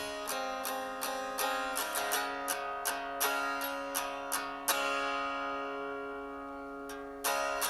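Background music: an instrumental passage of plucked acoustic guitar notes in a steady rhythm, which lets a chord ring for a couple of seconds about five seconds in before the picking starts again near the end.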